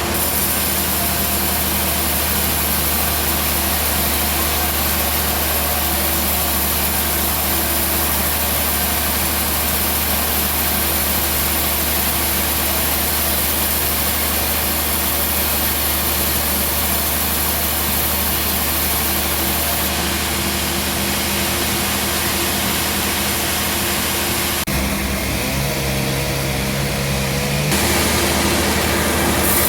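A bandsaw sawmill's engine running steadily. Near the end the sound changes briefly to a different, wavering tone before going back to the steady running.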